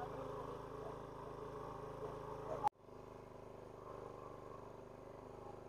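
Faint steady hum of a small generator engine powering the pump that drains the stream. The hum breaks off sharply a little under three seconds in, then carries on fainter.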